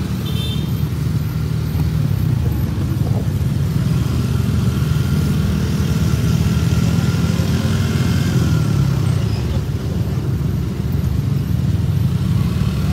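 Motorcycles riding in a column, heard from one of them on the move: a steady, loud low rumble of engines and road noise with no breaks.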